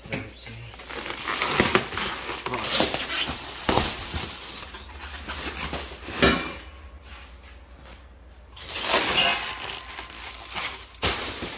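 Plastic wrapping crinkling and rustling as exhaust pipes and mufflers are handled and pulled out of a cardboard box, with a few sharp knocks.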